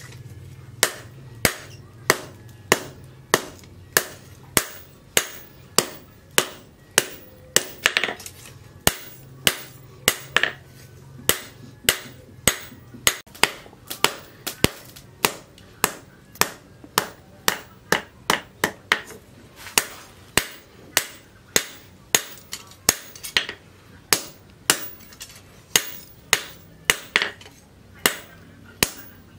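Hand hammer striking red-hot leaf-spring steel on a steel post anvil in a steady rhythm, about two blows a second, each blow a sharp metallic strike with a short ring, as the knife blade is forged to shape.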